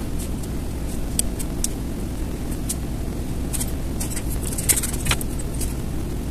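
Steady low background rumble with scattered light clicks, a few sharper ones a little before five seconds in.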